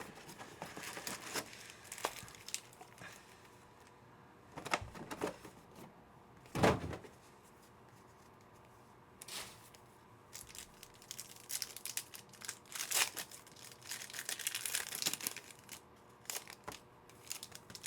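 Trading-card pack wrappers crinkling and tearing in short, scattered bursts as packs are opened and cards handled, with one louder knock about a third of the way in.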